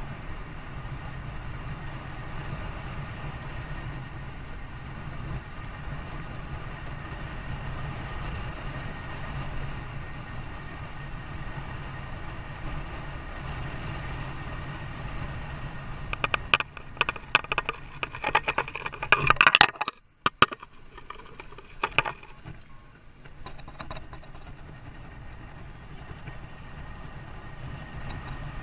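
Steady low rumble of a running vehicle, with a run of loud clicks and clatter between about 16 and 22 seconds in and a brief dropout in the middle of it.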